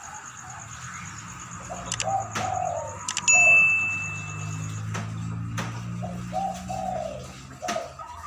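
Dove kept as a decoy bird cooing, two phrases of several low notes, one about two seconds in and another about six seconds in. A sudden sharp ringing ping about three seconds in is the loudest sound, with a few clicks over a low hum.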